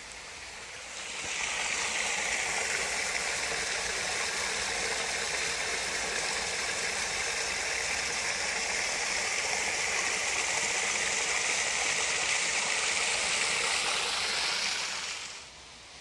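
Water rushing steadily, fading in about a second in and fading out near the end.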